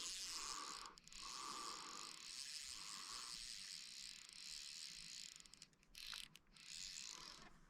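Fly reel's drag buzzing as a big trout pulls line off it. It runs for several seconds, breaks off briefly, then starts again near the end.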